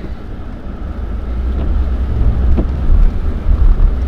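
Mercedes-AMG C43 on the move over a slushy, snow-covered road: a steady low rumble of engine and road noise that grows steadily louder.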